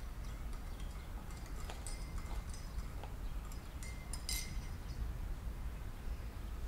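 A few light clinks and clicks from a spoon against a mug and a jar lid being put back on, the loudest about four seconds in, over a low steady hum.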